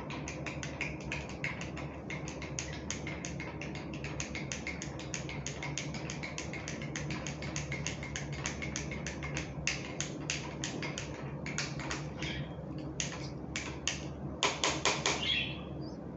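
A spoon stirring yeast, sugar and warm water in a cup, tapping quickly against its sides at about five clicks a second. A louder clatter of knocks comes about a second and a half before the end.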